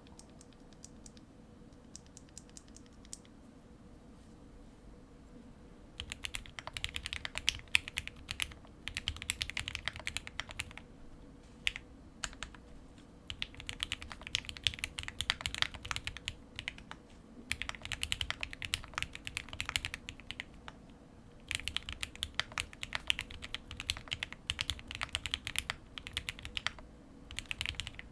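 Typing on an OwLab Spring mechanical keyboard with lubed Gateron CJ linear switches and a POM plate. A few light key taps come first, then fast runs of keystrokes begin about six seconds in, broken by short pauses.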